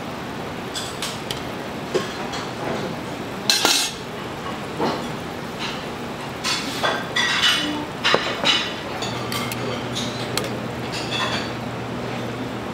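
Metal utensils clinking and knocking against dishes in a string of separate light clinks. A steady low hum comes in about nine seconds in.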